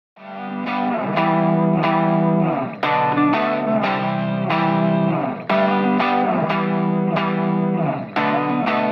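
Background music with an effects-laden guitar playing chords in a steady rhythm, fading in from silence over about the first second.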